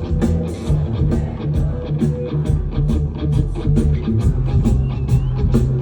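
Live rock band playing an instrumental passage between sung lines: electric guitar and bass over a steady, even beat.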